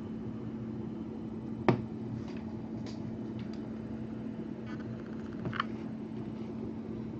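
Stiff trading cards handled in the hands: one sharp tap nearly two seconds in and a few faint clicks and rustles as the stack is squared, over a steady low hum.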